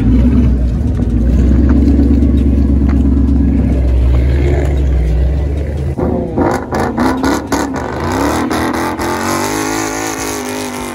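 Ford Mustang's engine rumbling loud and low at close range. About six seconds in it revs hard with crackling pops from the exhaust, then rises in pitch as the car accelerates away.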